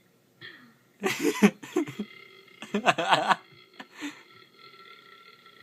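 A young woman burping loudly: one burp about a second in, then a longer, louder one around three seconds in.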